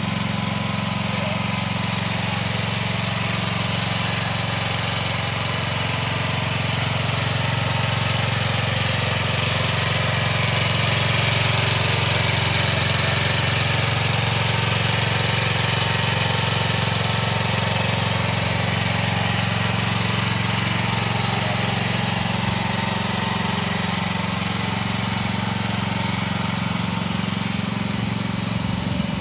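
AGT Industrial H15 mini excavator's small engine idling steadily.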